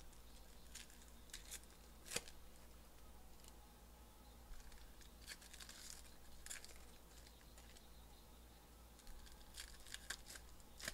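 Foil wrappers of Panini Donruss Elite football card packs being torn open and crinkled by hand, faint and in short scattered rips. The sharpest tear comes about two seconds in, with more rips near the middle and the end.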